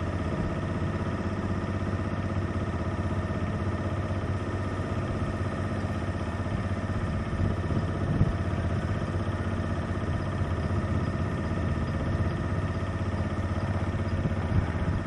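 Small wooden boat's engine running steadily at an even speed.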